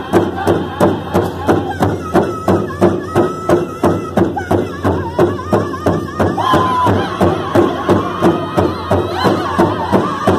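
Powwow drum group singing a fast song: men's voices together over a steady, fast beat struck in unison on a large powwow drum. High held notes rise out of the singing about six seconds in.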